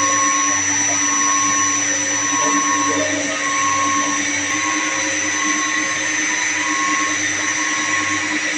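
Steady drone of running electric motor-driven pumps, with a high whine and a tone that swells and fades about once a second.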